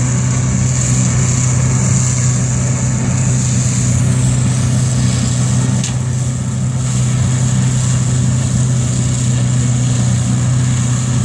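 An engine running steadily: a constant low hum with an even high whine above it, not changing pitch.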